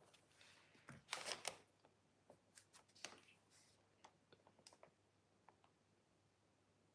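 Near silence, with faint scattered clicks and short rustles of handling, the loudest about a second in, thinning out by about halfway.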